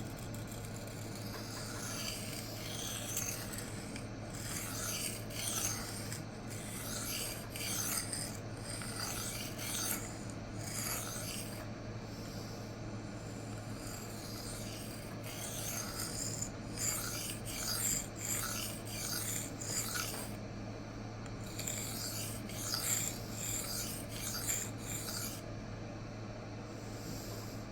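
Steel knife blade drawn freehand across a Rikon CBN (cubic boron nitride) sharpening plate, a rasping scrape on each pass, in runs of quick strokes broken by short pauses. A steady low hum runs underneath.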